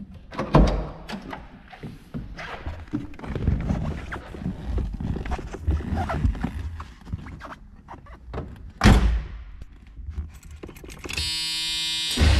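Car door opened, followed by knocks and rustling as someone climbs into the seat, then the door shut with a loud thud about nine seconds in. Near the end a steady tone sounds as the key is turned, and the 350 V8 engine starts right at the end.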